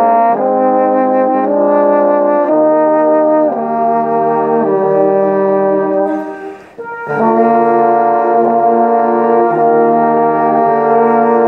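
A tenor trombone and a bass trombone playing a slow hymn in two parts, holding each note for about a second before moving to the next. Both break off briefly about six seconds in, then carry on.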